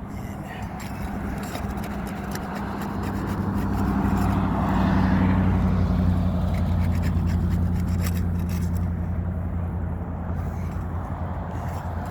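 A motor vehicle's engine running with a low hum that grows louder about four seconds in, then slowly fades. Light clicks are scattered through it.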